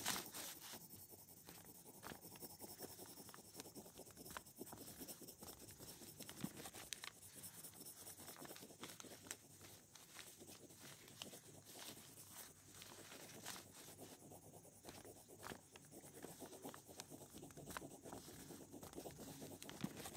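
Faint scratching of a black ink pen tip drawing lines on paper, with scattered small ticks as the pen moves and lifts.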